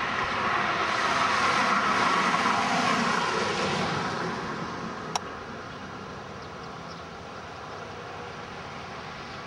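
A road vehicle passing by: its noise swells over the first couple of seconds, peaks, then fades away to a steady background.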